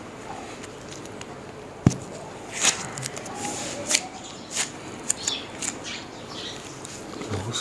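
A single sharp crack about two seconds in, a joint popping under a chiropractic adjustment. Around it are softer rustles and rubbing of hands on the body and clothing.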